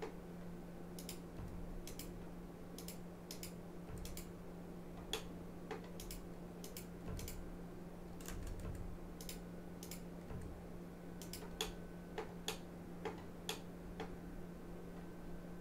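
Irregular clicks from a computer mouse and keyboard, some in quick pairs, over a steady low electrical hum, as edges are selected and dissolved in Blender.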